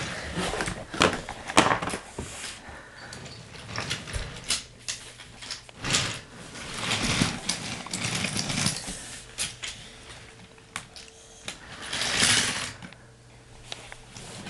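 Toy train set being handled: plastic pieces and track clattering and knocking, with a small motor humming steadily in stretches through the middle.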